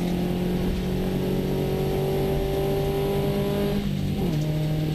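Subaru rally car's engine, heard from inside the cabin, pulling hard in gear with its pitch rising slowly as the car speeds up on gravel. About four seconds in, the pitch drops quickly and steadies: an upshift. Steady gravel and road noise runs underneath.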